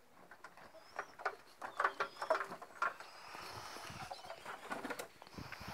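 Pigeon loft sounds: a run of scuffs and light knocks for a couple of seconds, with a few faint, thin, high chirps.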